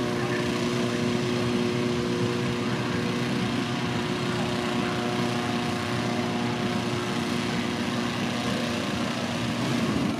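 Petrol-engined inflator fan running steadily during hot-air balloon inflation, a small-engine hum over a broad rushing of air. The engine's hum fades near the end while the rushing carries on.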